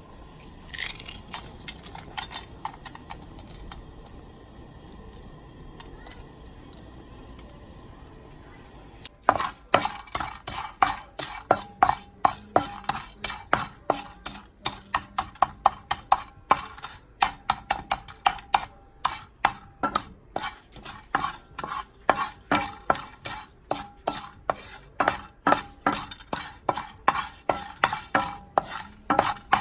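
A utensil clinking and scraping against a bowl while mixing. A few scattered clinks at first, then about nine seconds in a steady, brisk rhythm of strikes, roughly two a second.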